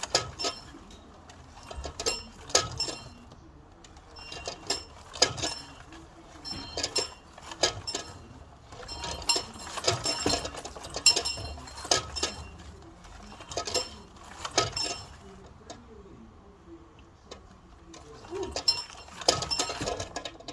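A small bell ringing with a high, clinking tone. Its clapper strikes several times in quick clusters about every two seconds, and there is a short lull in the second half.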